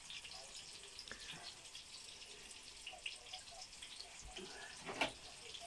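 Meat patties frying in a pan of oil, giving a faint crackle of many small pops and spits, with a sharper click about five seconds in.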